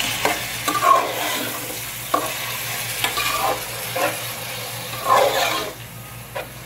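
Freshly washed minced meat (keema) sizzling in hot oil in a metal pot while a steel spoon stirs it, with repeated scrapes and knocks of the spoon against the pot.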